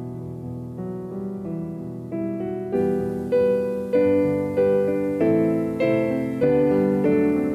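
Solo piano playing a slow Christmas carol as reflective music. It starts soft, then grows louder about three seconds in, with a new chord struck roughly every half second.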